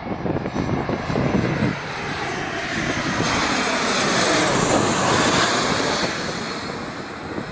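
A four-engined BAe 146-family regional jet passing low overhead on final approach to land, its turbofans swelling to a peak about five seconds in. A high whine drops in pitch as it goes over, then the noise eases off.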